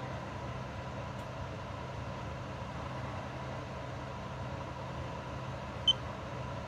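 Steady electrical hum of workshop equipment with a thin constant whine, and one short high electronic beep about six seconds in from a handheld battery tester as its rated-amps setting is stepped down.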